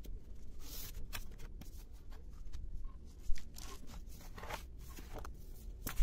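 Paper rustling and crinkling as a thick practice-exam book and its booklets are handled and moved. There are two sharper knocks, one about halfway through and one near the end.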